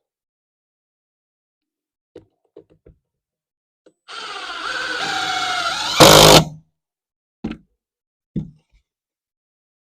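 Power drill driving a screw into wooden window framing. After a few light clicks, the drill runs for about two seconds with a whine that shifts in pitch, then ends in a short, loud burst; two knocks follow.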